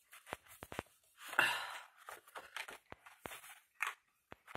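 Paper and card being handled and pressed flat on a cutting mat: a few light taps and clicks, then a brief rustle of paper sliding about a second and a half in, followed by scattered small clicks and soft rustles.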